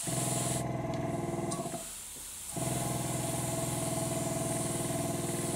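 AZTEK double-action airbrush spraying paint: a steady hiss of air over the even hum of a small motor driving the air supply. The hum drops out for under a second about two seconds in, then carries on.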